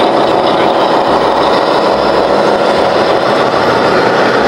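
Radio-controlled Scania tractor-trailer model running, giving a steady, loud engine-like noise that cuts off abruptly near the end.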